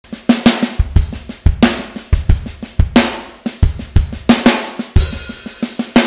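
Drum kit playing a groove: bass drum, snare and hi-hat strokes, loud hits with quieter ones between them. A final big hit near the end rings out and fades.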